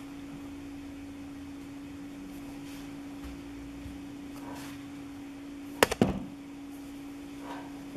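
Quiet crocheting: faint soft rustles of acrylic yarn being worked into double crochets with a hook, over a steady low hum. A sharp double click comes about six seconds in.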